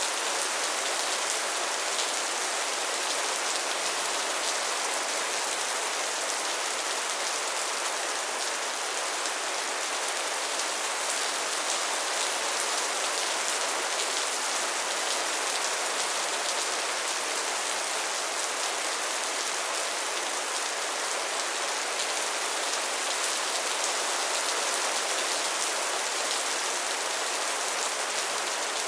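Heavy rain drumming steadily on a metal roof: an even, constant hiss with fine drop patter and no thunder.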